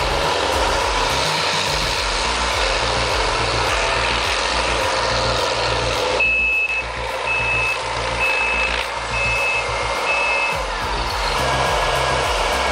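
Heavy diesel earthmoving machines (a Cat D8N dozer pushing a Cat 621B scraper) running hard under load with a steady deep rumble. About six seconds in, a reversing alarm sounds about five even high beeps, then stops.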